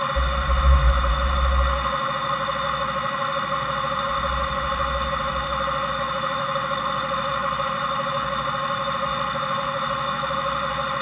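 Fadal VMC 5020A CNC vertical machining center running without cutting: a steady machine hum with a whine. A deep rumble comes in for the first two seconds and again briefly about four seconds in.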